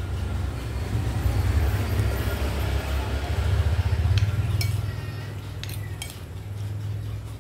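Fork and spoon stirring noodles on a plate, scraping and clinking, with a few sharp metal clinks between about four and six seconds in, over a steady low rumble.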